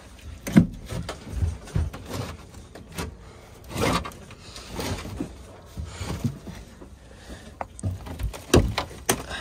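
Irregular knocks, thuds and scraping of wood framing and an old return box being worked loose, with the loudest thump about half a second in and another near the end.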